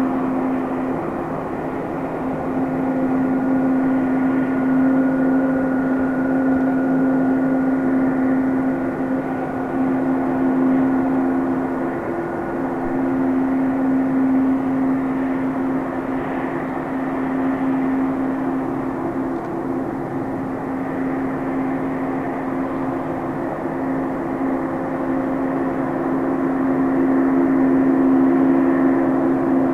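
Boeing 777-200 twin-engine airliner taxiing with its engines at idle: a steady low drone with a fainter high whine above it that fades about halfway through.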